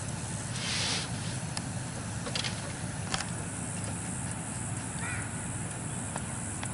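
Work noises of roll roofing being handled and an aluminium stepladder being climbed down: a brief rustle about a second in, then a few sharp clicks and knocks, over a steady outdoor background hum.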